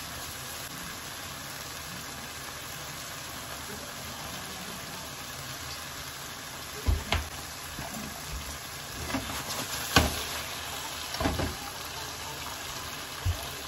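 Mackerel fillets and eggplant wedges frying in oil in a frying pan: a steady sizzling hiss, with a few sharp pops and clicks in the second half as a little oil is added.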